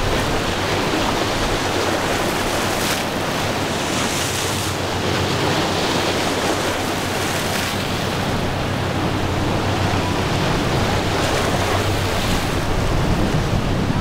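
Steady wind noise on the microphone over choppy water, with a powerboat's engine running low underneath as the boat passes.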